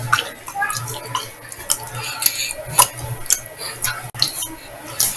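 Scattered light clinks and taps of kitchenware over a low steady hum.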